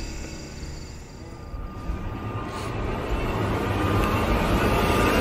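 A low, steady rumble with faint held tones, swelling gradually louder: an ominous ambient build in a music video's soundtrack.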